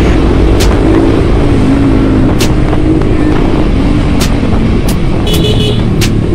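Yamaha NMAX scooter's single-cylinder engine running while riding in traffic, its pitch wavering as the speed rises and falls. Heavy wind rumble on the microphone and a few sharp clicks.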